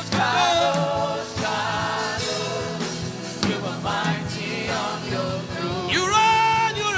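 Gospel worship song: sustained, gliding sung notes over a band with a steady drum beat.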